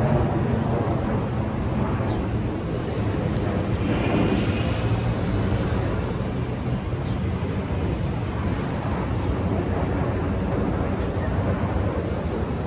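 City street ambience: a steady rumble of traffic with people's voices mixed in.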